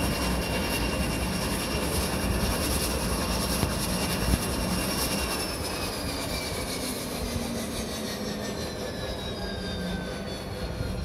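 Twin-engine turboprop airliner taxiing, its engines running with a steady rushing noise and a thin high whine that slowly drops in pitch through the second half.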